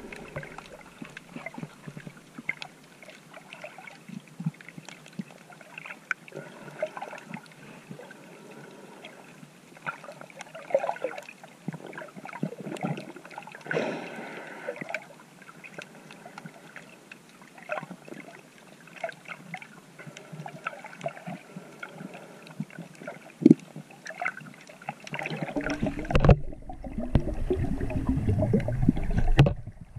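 Underwater sound picked up through a GoPro's waterproof housing while swimming: a crackle of many small clicks and gurgles over a hiss. About 26 s in, louder low sloshing and rumbling of water takes over.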